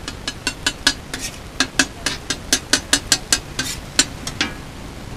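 Metal spatula chopping and scraping egg mixture on a large flat tawa griddle: quick repeated metallic clinks, about four to five a second, that stop near the end, over a steady hiss of frying.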